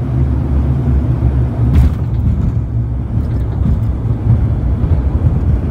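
Cabin noise of a turboprop airliner around landing: a loud, steady low rumble from the engines, propellers and airframe, with one sharp knock about two seconds in.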